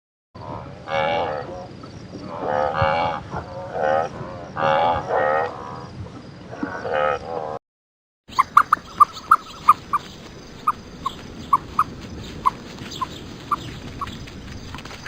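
Livestock calling repeatedly, short wavering cries about once a second. After a brief cut comes a run of about a dozen short, single-pitched chirps, like calling frogs.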